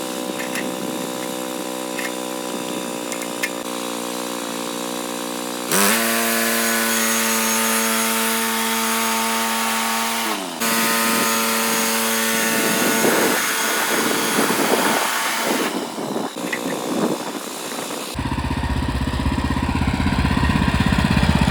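Small gasoline engine of a portable bandsaw sawmill running steadily, then throttled up sharply about a quarter of the way in, running at high speed and turning rougher and noisier partway through. Near the end a deeper, low rumbling sound takes over.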